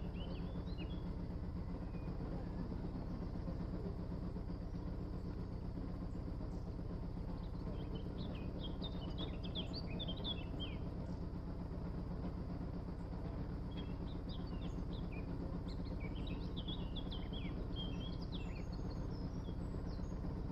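A narrowboat's engine running steadily at an even, rapid low beat as the boat moves along, with small birds chirping over it in scattered bursts, thickest in the middle and later part.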